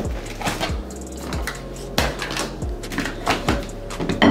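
Dishes and kitchenware handled on a countertop: a string of clinks and knocks, the loudest near the end.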